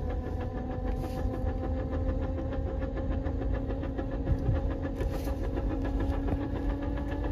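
NV4500 five-speed manual transmission giving a steady gear whine over the truck's engine rumble while driving in a low gear, the pitch holding nearly constant and edging up slightly near the end. The owner traced the noise to a loose, worn input shaft missing a tooth.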